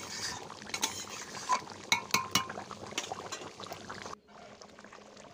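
A metal spoon stirring a thickening chicken curry in a metal pan, clinking and scraping against the pan several times over the bubbling of the simmering gravy. About four seconds in this drops abruptly to a quieter, steady bubbling hiss.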